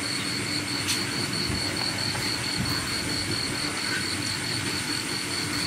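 Steady rain on a plastic tarp roof, with insects trilling in a high, evenly pulsing note throughout. A single sharp click about a second in.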